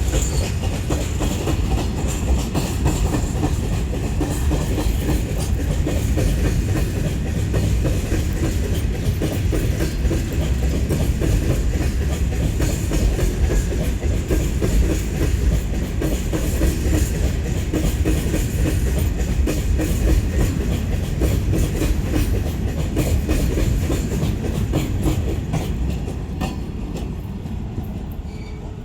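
Goods train of BCNHL covered wagons rolling past, its wheels clattering over the rail joints in quick succession over a heavy, steady rumble. The sound eases off near the end.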